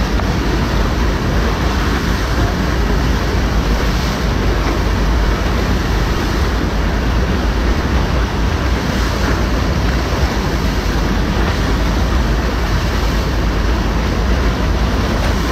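Loud, steady rush of churning whitewater from an artificial standing surf wave, heavy in the low end.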